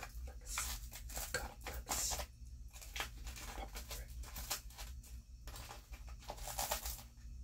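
Close-up crinkling and crackling of a Pop Rocks candy packet handled right against the microphone, in irregular sharp bursts that are loudest about two seconds in and again near the end.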